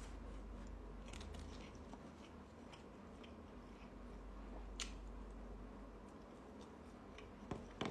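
A person chewing and biting food, faint, with a few small crunches and clicks.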